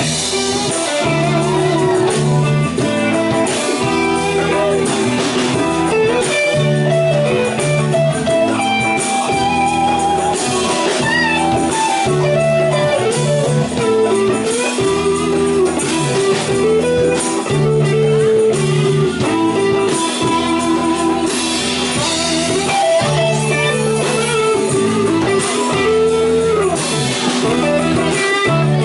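Live band playing an instrumental stretch, an electric guitar leading over a repeating bass line and drums with cymbals.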